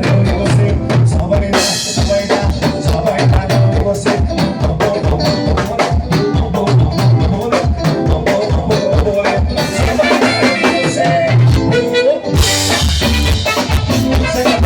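Recorded band music with a steady drum-kit beat and a sung melody, cutting out for a moment just after twelve seconds before the full band returns.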